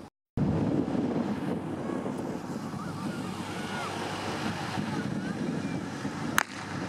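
Wind buffeting the microphone, with faint voices in the background. The sound drops out completely for a moment just after the start, and there is one sharp click near the end.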